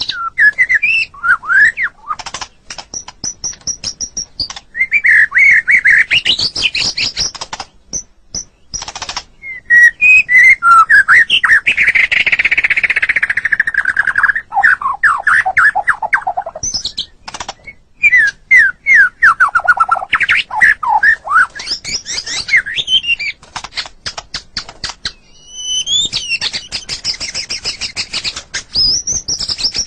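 White-rumped shama (murai batu) singing a long, varied song: whistled phrases that rise and fall, quick trills, a harsh buzzy stretch, and runs of dry clicks between phrases.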